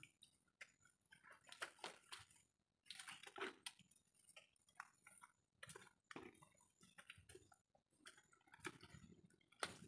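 Faint, irregular wet clicks and small splashes of hands groping through soft mangrove mud and shallow water while feeling for clams.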